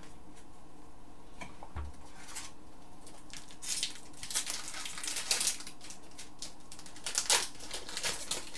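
Foil hockey-card pack wrappers crinkling and cards being handled, in a run of short rustling bursts from about three seconds in.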